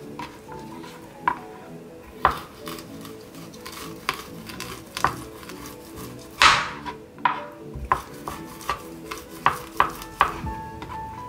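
Rolling pin pressing and rolling over halved deodeok roots on a cutting board, giving about a dozen irregular knocks and clatters, the loudest about six and a half seconds in. Soft background music runs under it.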